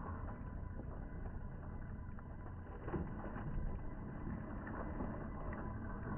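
Axial SCX10 III scale RC rock crawler driving slowly over boulders: a steady low hum from its electric motor and geared drivetrain, with a few short clicks as tyres and chassis knock on the stone.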